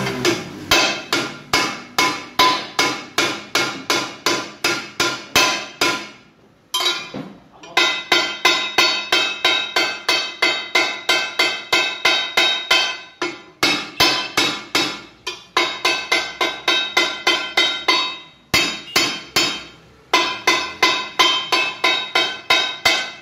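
A hammer strikes the lip of a steel car wheel rim about three times a second, each blow ringing metallic, in runs broken by short pauses. The hammering is knocking a dent out of the bent rim to straighten it.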